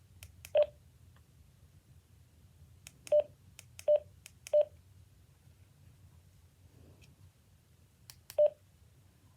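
Radioddity GD-77 handheld radio giving short single-pitch beeps as its buttons are pressed: five in all, three of them in quick succession about three seconds in, each with faint clicks just before.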